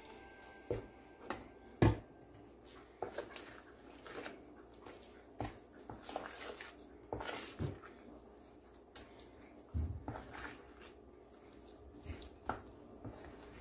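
Fritter batter being mixed in a bowl: soft wet stirring sounds with irregular light taps and clinks of the utensil against the bowl.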